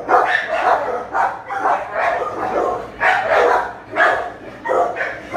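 Dogs in shelter kennels barking repeatedly, about two barks a second.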